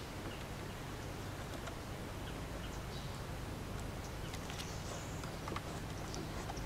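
Quiet background with a steady low hum and a few faint, scattered ticks.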